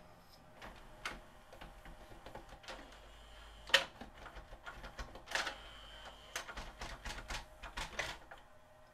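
JVC XL-M407 CD changer's cartridge mechanism pulling a disc from the six-disc magazine and loading it: a run of irregular mechanical clicks and clacks with a brief motor whine in the middle, stopping near the end. The changer is selecting and loading normally.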